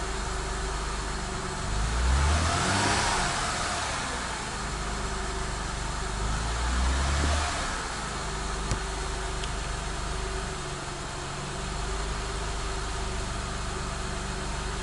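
2006 Acura TL's 3.2-litre V6 idling, revved briefly twice, with its freshly fitted remanufactured alternator charging and the charging light off. A single sharp click sounds past the middle.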